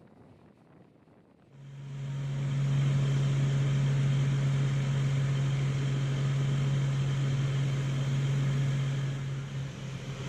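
A steady low mechanical hum with an even hiss that starts suddenly about a second and a half in and holds level; before that it is faint.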